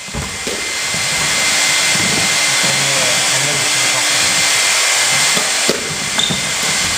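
Loud, steady rushing noise, like air blowing across or rubbing on the microphone. It cuts off suddenly shortly before the end. A few faint knocks, from squash rackets and ball, sound underneath it.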